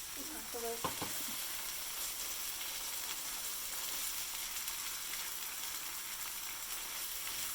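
Onions and peppers frying in a big pan, a steady sizzle. About a second in there is a brief voice sound and a light knock.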